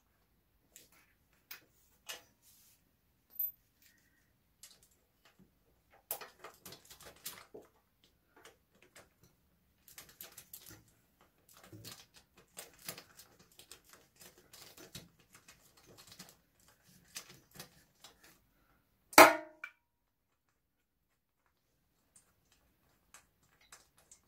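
Socket ratchet clicking in short bursts while bolts on a motorcycle cylinder head are turned, with scattered small metal tool clicks and one loud metal clank late on.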